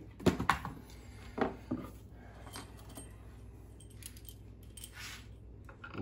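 Hand-handling noise of parts and tools on the boat deck: a few light clicks and clinks in the first two seconds, fainter ticks after, and a soft brushing sound about five seconds in.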